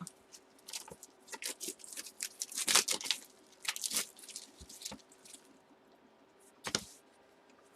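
Plastic wrap and cardboard packaging crinkling and tearing in irregular crackles as a sealed trading-card box is opened by hand, busiest in the first five seconds, with one sharp crackle near the end.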